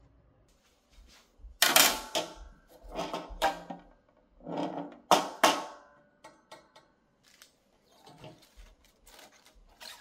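A clear plastic food storage container and its stainless steel wire rack being handled on a countertop, giving several clunks and rattles with a short metallic ring. The loudest come about two, three and five seconds in, followed by a few faint ticks.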